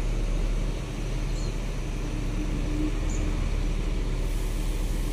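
Steady low rumble of bus and other vehicle engines running, with passing traffic.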